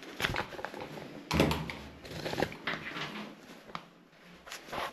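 Rustling and several short knocks from things being handled, the loudest knock about a second and a half in.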